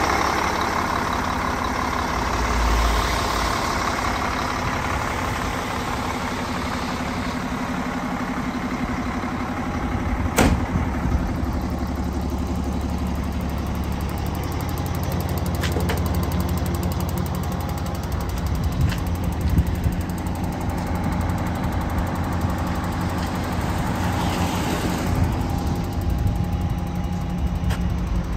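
2002 Volvo A25D articulated dump truck's diesel engine idling steadily, with one sharp click about ten seconds in.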